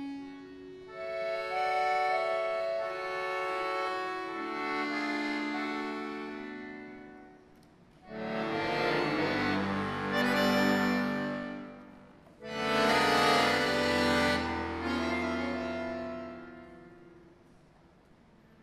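Solo button accordion playing a slow passage: soft sustained chords that fade away, then two loud, full chords with deep bass notes, each held for a few seconds and dying away.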